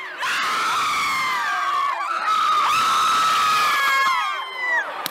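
Several young people screaming over one another: long high-pitched held screams and falling shrieks, with brief breaks about two seconds in and near the end.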